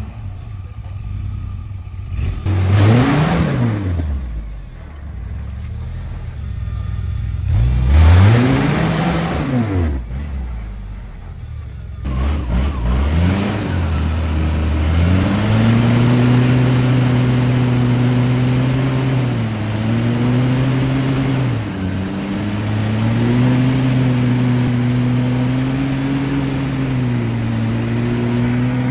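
Lifted Jeep's engine revving hard in two swells that climb and fall in pitch, then held at steady high revs with brief dips, the engine under load as the Jeep pushes through deep mud ruts.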